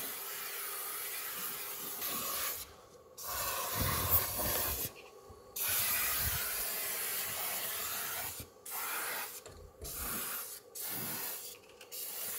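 Aerosol can of lanolin rust-proofing oil spraying through a thin extension tube in hissing bursts: three long sprays of a couple of seconds each, then four short ones in quick succession near the end.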